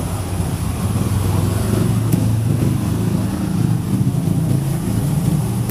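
Steady low rumble of an engine running close by, with no change in pitch.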